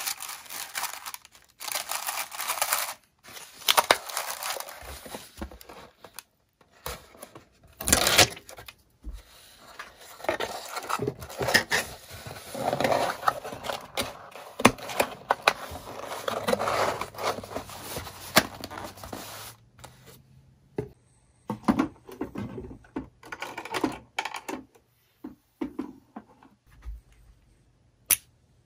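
Packaging being handled: plastic and paper crinkling, tearing and scraping in a dense run of irregular rustles and sharp clicks. The handling thins out about two-thirds of the way through into scattered clicks and rustles over a faint low hum.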